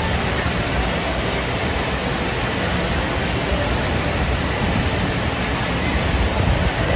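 Steady rushing water of a FlowRider surf simulator, its fast sheet of water streaming up the padded ramp.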